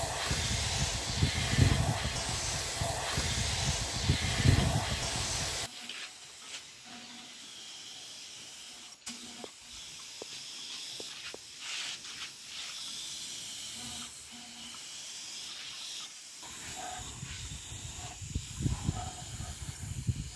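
A loud steady hiss that cuts off suddenly about six seconds in, leaving a quieter stretch with scattered small clicks and knocks; the hiss starts again about sixteen seconds in.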